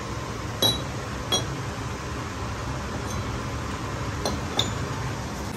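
Four light metallic clinks as rough-cast piston blanks are handled on a lathe bed: two near the start and two close together near the end, over a steady low background hum.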